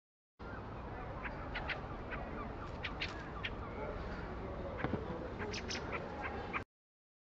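Fieldfares calling: a scatter of short, sharp high notes, some in quick pairs, over a steady low background hum. The sound starts abruptly about half a second in and cuts off abruptly near the end.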